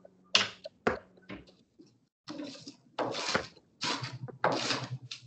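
Chef's knife cutting through a stacked red onion on a cutting board: a couple of sharp taps, then a run of crisp slicing cuts about every half second or so.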